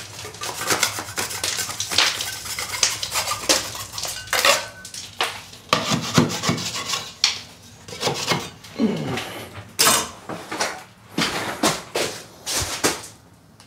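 Metal putty knife scraping loose, powdery filler and peeling paint off a plasterboard ceiling where the paper joint tape has come away, in short irregular strokes.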